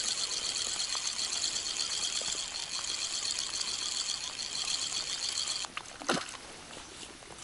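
Spinning reel on a feeder rod being wound steadily, its gears giving a fast high whirr, while a hooked fish, most likely a small bream, is reeled in. The winding stops abruptly a little before six seconds in, followed by a brief splash of water.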